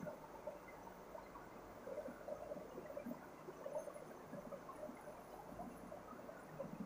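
Faint squeaks and scratches of a marker pen writing on a whiteboard, in short irregular strokes.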